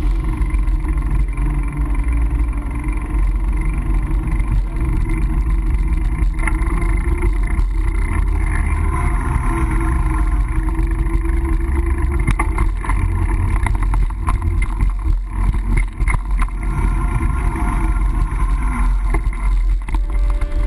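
Steady low rumble with a wavering motor-like drone: outdoor ride noise picked up by a GoPro on a mountain bike being ridden.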